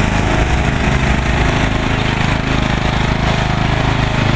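Lawn mower engine running steadily at working speed.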